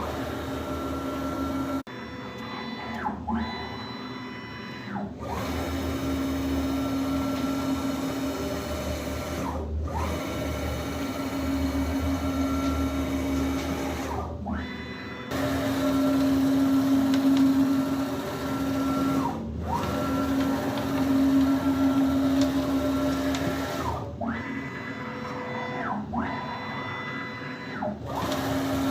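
Closed-loop NEMA 34 stepper motors driving the axes of a CNC milling machine through fast test moves. A steady motor whine sweeps down and back up in pitch, with a short dip, each time the axes stop and reverse, about eight times.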